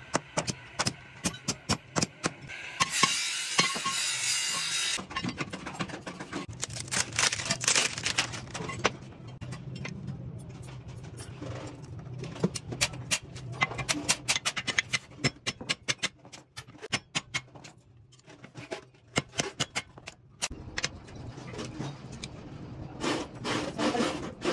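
Hammer striking a steel punch against a truck brake shoe while the old brake linings are being replaced: many sharp metallic blows, often in quick runs, with a stretch of harsh scraping noise about three seconds in.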